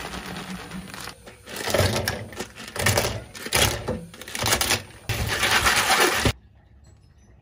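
Boiled blood cockles scooped with a wire skimmer and tipped into a plastic colander over a steel sink: shells clattering against metal and plastic in irregular bursts, with splashing water. It stops abruptly about six seconds in.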